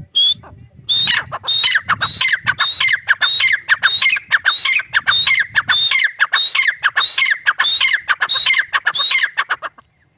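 Grey francolin (teetar, the South Asian "gray partridge") calling: a loud, rapid series of short, high notes, each falling in pitch, about two a second. The series runs for about nine seconds and stops just before the end.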